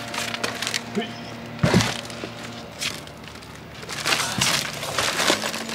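Scattered sharp knocks and cracks of small cut logs being handled and knocked together, the loudest about two seconds in and a cluster near the end.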